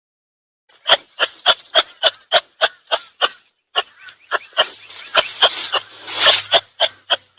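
An animal call made of a rapid series of sharp, evenly spaced pulses, about three or four a second, with a short break partway through.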